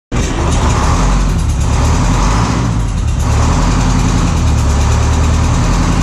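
Detroit Diesel 8V71 non-turbo two-stroke V8 diesel of a 1981 Silver Eagle bus, idling steadily with a soft puffing 'pffft' at the exhaust, not metallic or mechanical, like a puff of compressed air. The owner takes it for a misfire on the left bank, as if one injector is not firing and one cylinder gets no fuel.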